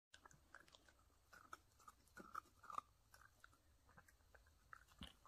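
Ten-week-old miniature dachshund puppy chewing a crisp cream-filled sandwich cookie: faint, irregular small crunches and clicks.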